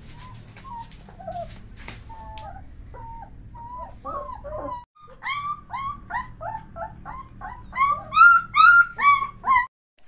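Young Bully Kutta puppies whimpering and squealing in short, high cries. The cries get louder and come about two a second in the second half, then stop abruptly near the end.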